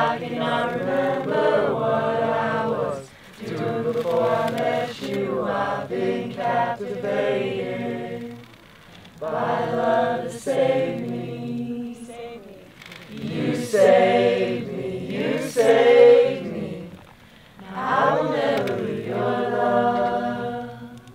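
Voices singing a worship song without accompaniment, in phrases with short breaks between them.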